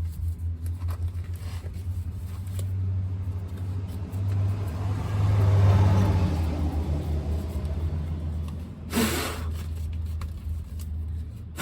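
A vehicle going past: its noise swells up, peaks about six seconds in, and fades, over a steady low hum. A short, sharp noise comes about nine seconds in.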